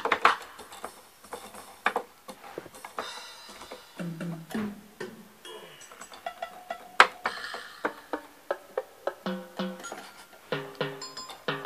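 Short notes and percussive hits played one at a time from a keyboard through a MIDIPLUS miniEngine USB General MIDI sound module, at an uneven pace, testing its tones.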